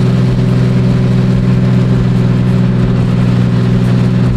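Car engine running at a steady speed, a constant low drone that holds one pitch throughout.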